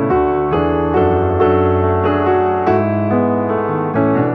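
Background piano music: a steady melody with a new note or chord every half second or so.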